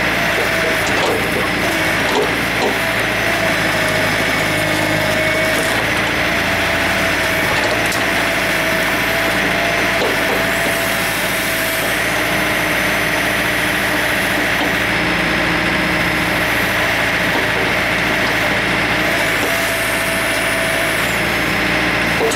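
John Deere 110 backhoe's diesel engine running steadily while the backhoe digs out a tree stump, with a steady whine over the engine note. The digging works a newly installed bucket curl cylinder.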